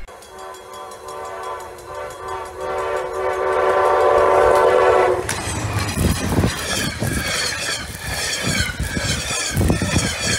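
Diesel locomotive air horn sounding one long steady blast for about five seconds. The horn then stops and gives way to the noisy rush of the train plowing past, with snow spray blowing over the microphone and low thumps, two of them heavy.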